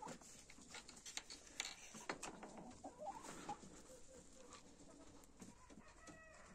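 Faint clucking of young Wyandotte hens, a few short soft calls, among scattered soft taps and rustles.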